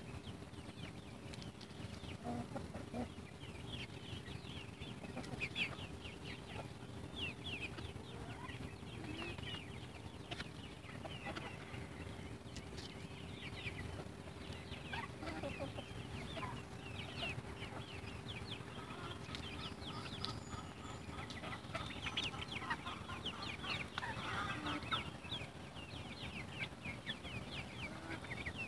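Young backyard chickens and a turkey, about 14–15 weeks old, calling in their pen: many short, high, falling calls and clucks overlapping throughout. A faint steady hum lies underneath and stops about 22 seconds in.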